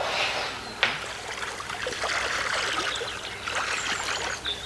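Shallow water trickling and splashing, with small crackles throughout and one sharp click about a second in.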